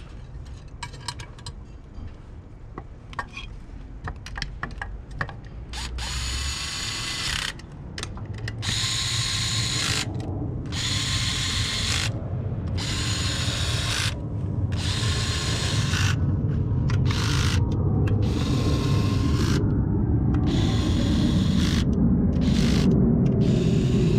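A few light clicks, then, from about six seconds in, a handheld power tool runs in repeated bursts of one to two seconds, driving fasteners during reassembly. A low hum builds up underneath the bursts.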